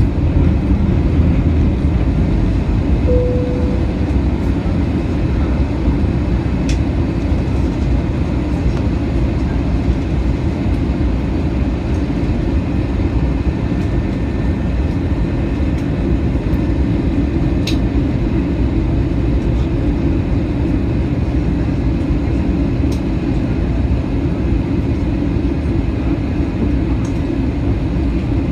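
Steady cabin noise inside an Airbus A320 airliner: a deep, even rumble of engines and airflow. A brief soft tone sounds about three seconds in.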